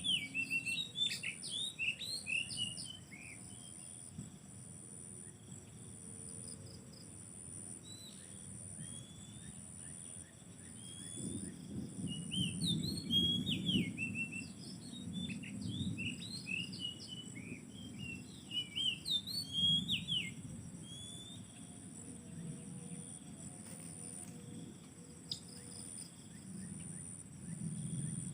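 Oriental magpie-robin (kacer) singing in bursts of quick, varied whistled and chirping phrases, loudest in the first few seconds and again through the middle. A steady, pulsing high insect buzz runs underneath.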